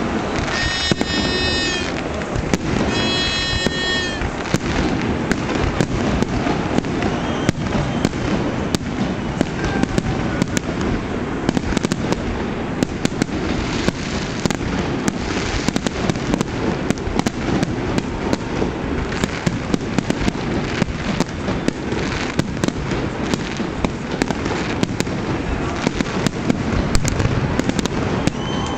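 Aerial fireworks display: shells bursting and crackling overhead in a continuous barrage of sharp bangs. Near the start, two shrill steady tones of about a second and a half each sound over it.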